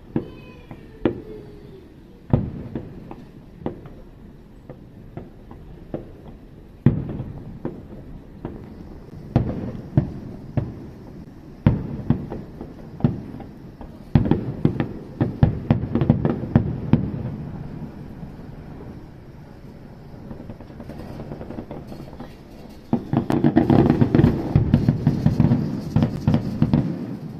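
Fireworks going off: a string of separate bangs, each trailing away, with two stretches of dense crackling, the louder one near the end.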